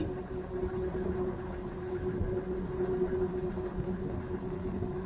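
Canal tour boat's engine running steadily: an even, unchanging hum over a low rumble.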